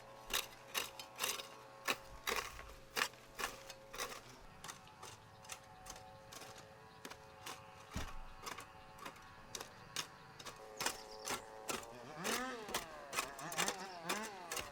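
Rapid, regular clicking or tapping, about three sharp clicks a second, over faint steady tones. About twelve seconds in, an animal starts bleating, several rising-and-falling calls.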